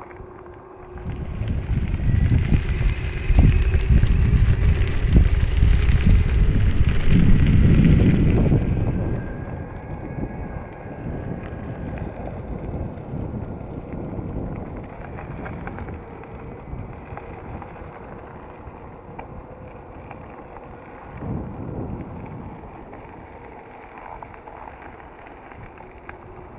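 Electric longboard's all-terrain tyres rolling over a gravel road, with wind buffeting the microphone. The sound is loudest from about a second in until about nine seconds in, then settles to a quieter rolling rumble.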